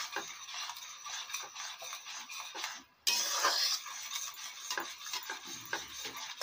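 A spoon scraping and clinking against a steel kadhai as thick, bubbling tamarind-and-jaggery chutney is stirred. The stirring keeps the jaggery from sticking to the bottom and burning. The sound briefly cuts out about three seconds in, then the scraping comes back louder.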